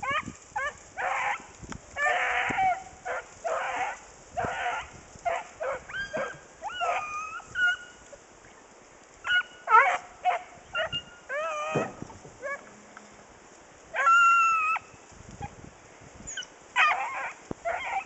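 Hunting hounds baying on a scent trail: a string of short barks and yelps all through, with one longer drawn-out bawl about fourteen seconds in.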